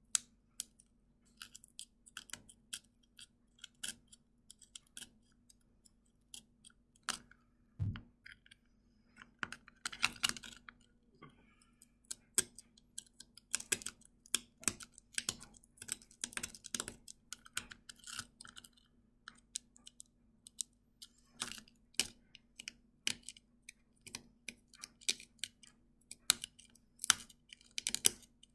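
A thin pointed tool picking and scraping at a hard dalgona sugar candy (honeycomb toffee), working around the pressed shape: irregular sharp clicks and ticks with short scratchy spells.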